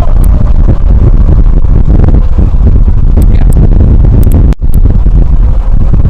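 Strong wind roaring and buffeting the microphone, loud and steady, with a momentary break about four and a half seconds in.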